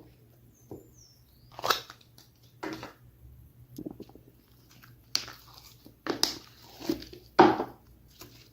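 Slime being pressed and squeezed by hand: a string of separate sticky squishes and crackles, seven or so, the loudest near the end.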